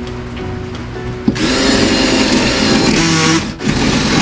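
Cordless power saw starting up about a second in and cutting into wooden wall paneling, with a brief stop and restart near the end.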